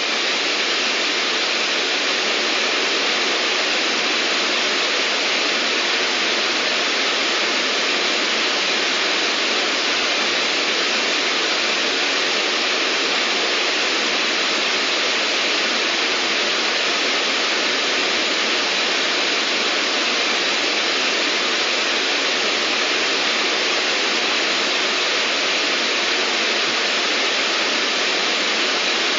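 Steady white-noise hiss, even and unchanging throughout, bright with little low rumble.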